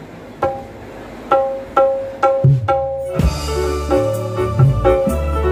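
Javanese kendang hand drums played through a loud stage sound system: a few spaced, ringing strokes, some low ones with a falling pitch. About three seconds in, a dangdut koplo band comes in with bass and keyboard, and the kendang drives the groove.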